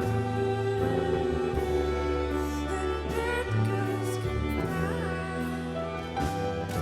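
Music for a lyrical dance solo: a slow piece with long held bass notes under a melody, with a singing voice.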